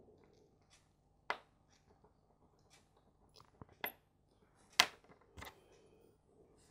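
Small metal clicks and taps of watchmaker's tools, such as tweezers and a screwdriver, against a watch movement and the bench: a handful of separate sharp clicks, the loudest nearly five seconds in.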